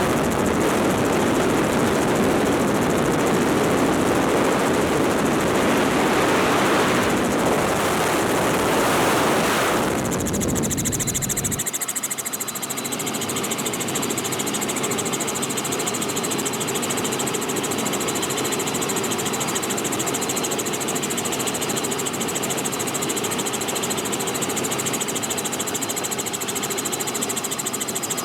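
Robinson R44 helicopter in flight with its doors off: the engine and rotor drone under heavy wind rush on the microphone. About ten seconds in the wind rush drops away, leaving a steadier drone with a high whine.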